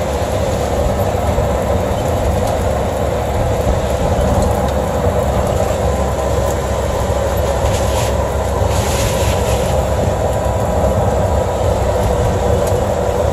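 Steady running noise of a small open-sided cart driving on a wet road in the rain: motor and tyre hiss mixed with rain and wind, with a short rise in hiss about nine seconds in.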